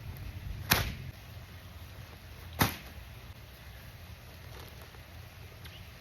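Two sharp knocks, about two seconds apart, over a low steady rumble.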